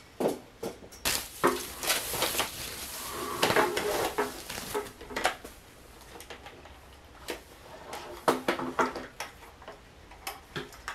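Thin wooden slats of a roll-up folding table, strung together on elastic, clacking and knocking against each other as the tabletop is handled and unfolded. The knocks come irregularly, some in quick rattling runs.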